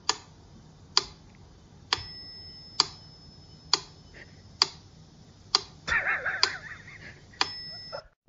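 Sharp, evenly spaced ticks, a little under one a second, nine in all, like a clock ticking. Between about six and seven seconds in a short wavering, warbling sound rises over the ticking.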